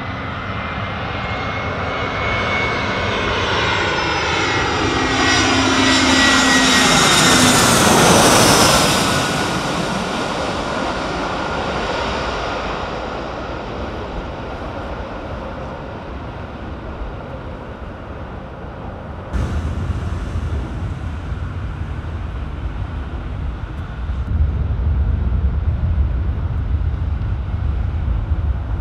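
Twin-engine jet airliner on final approach flying low overhead: its engine noise builds to a peak about eight seconds in, with tones sweeping down in pitch as it passes, then fades as it goes away to land. About two-thirds of the way through, the sound changes abruptly to a steady low rumble.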